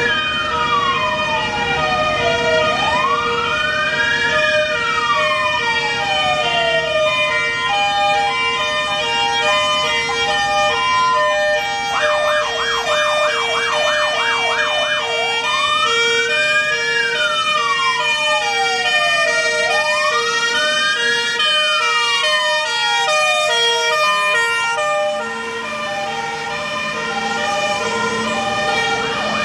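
Fire engine on an emergency run: its siren wails slowly up and down, switching to a fast yelp for a few seconds about twelve seconds in. Under it runs a steady repeating pattern of air-horn tones that steps between pitches. The wail breaks off for a few seconds near the end and then starts again.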